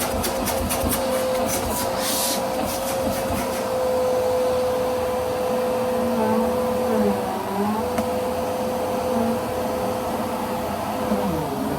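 Bissell PowerForce Helix Rewind Pet upright vacuum cleaner running with a steady motor hum over a hiss of air. A run of rapid clicks sounds in the first few seconds, and the hum dips briefly in pitch twice, midway and near the end.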